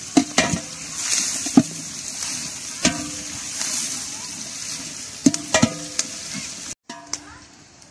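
Sliced onions sizzling as they fry in oil and ghee in a large aluminium pot, stirred with a flat metal spatula that scrapes and clinks against the pot several times. The sound cuts out briefly about seven seconds in.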